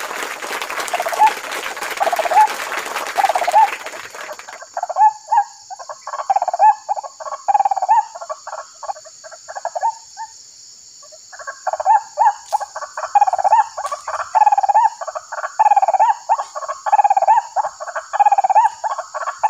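White-breasted waterhen calls, the harsh 'kruak' phrase repeated over and over in a fast rhythm, from the lure caller used to draw the birds into the snares; the calls break off briefly about ten seconds in, then resume. For the first four seconds or so there is rustling through dry palm fronds and undergrowth, and a steady high insect drone runs under the calls.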